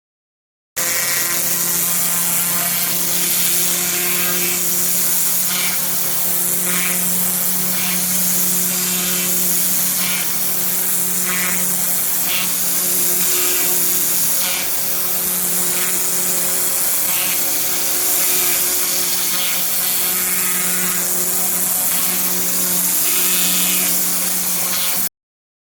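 Pressure washer running: a steady pitched motor hum under the loud hiss of the water jet. It cuts in abruptly just after the start and cuts off abruptly near the end.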